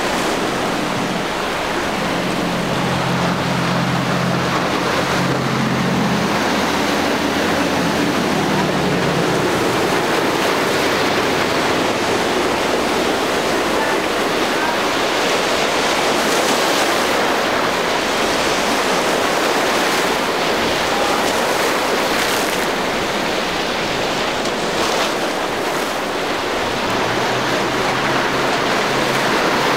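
Steady rush of waves and surf at an inlet, with wind on the microphone. A boat engine drones low in the first several seconds and comes back near the end.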